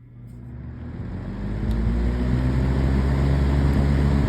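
A 2004 Haier five-blade box fan spinning up to high speed, its air rush and motor hum building over about two seconds and then running steadily. The motor makes a buzzing sound through the frame.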